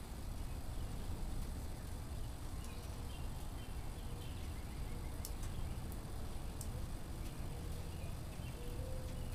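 Wood fire burning in an open-doored wood stove: a steady low rush with a couple of sharp crackles about the middle. Faint bird chirps from outside a few seconds in.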